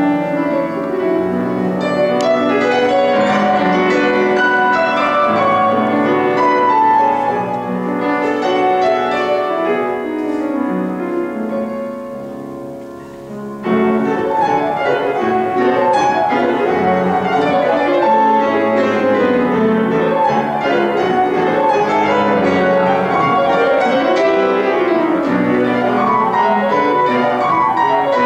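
Steinway grand piano played solo: a busy classical piece with many quick notes. It grows softer toward the middle, then comes back loud all at once about halfway through.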